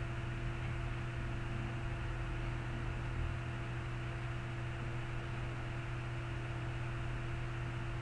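Steady electrical hum with a constant background hiss, unchanging throughout.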